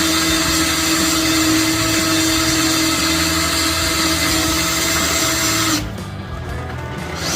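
Handheld electric power tool, a drill or driver running bolts into the airbag bracket, whirring steadily at one pitch and stopping about six seconds in.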